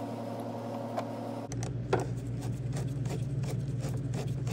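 Flathead screwdriver tightening worm-drive hose clamps on a rubber air intake tube: irregular light clicks, starting about a third of the way in, over a steady low hum.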